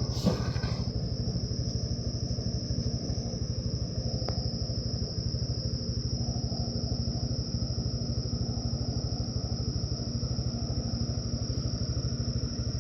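Heavy machinery's diesel engine running steadily, a low, rapidly pulsing drone, with a constant high-pitched tone over it.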